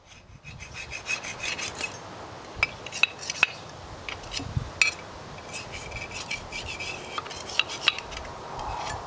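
Steel lawnmower cutting blade and its metal blade holder being handled and slid apart by gloved hands: continuous scraping and rubbing of metal on metal with a scatter of sharp clinks, the loudest a little after three seconds in.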